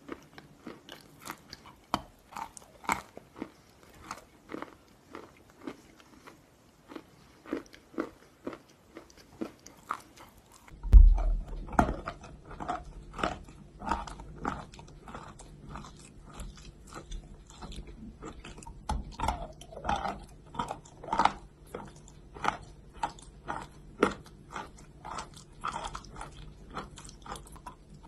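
Close-up biting and crunching of pieces of chalk: crisp, separate snaps about once a second at first. About eleven seconds in there is a loud thud and the sound changes, followed by quicker, fuller crunching chews.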